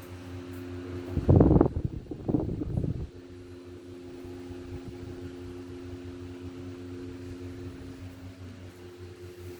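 Many ceiling fans running together on low speed: a steady hum with several fixed motor tones. About a second in, two loud bursts of low noise cover it for under two seconds.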